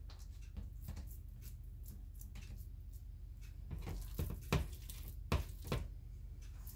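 Hands working raw ground-beef meatloaf mix in aluminum foil loaf pans: soft squishing and small clicks over a steady low hum, with a few sharper clicks between about four and six seconds in.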